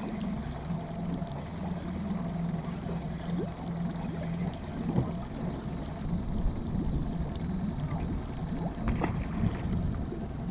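Boat motor running steadily at trolling speed, a low hum, with small splashes and knocks of water against the hull.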